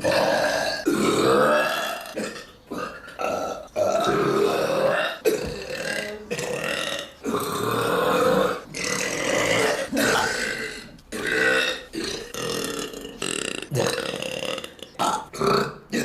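A girl burping over and over: a run of loud, drawn-out burps, giving way near the end to shorter, quicker ones.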